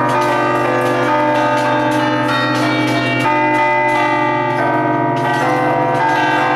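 A peal of eight bronze church bells in B-flat major, cast by Ottolina of Seregno in 1948, struck in quick succession from a baton keyboard. The strokes overlap into a loud, continuous ringing of many tones.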